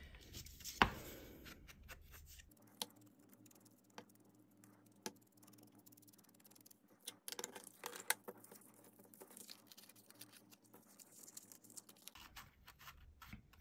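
Faint rubbing, scraping and light taps of an ink blending tool worked along the edge of a die-cut cardboard feather, with cardstock pieces being handled; a sharp click about a second in is the loudest sound, with a few more scattered clicks later.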